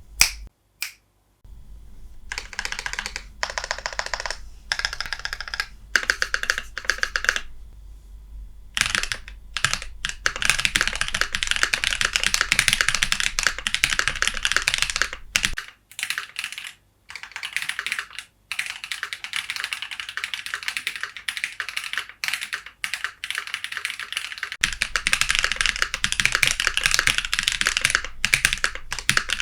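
Typing on a Keychron Q2 aluminium mechanical keyboard with Akko CS Lavender switches. The keys clack in short separate runs for the first few seconds, then in fast, near-continuous typing broken by a couple of brief pauses about halfway through.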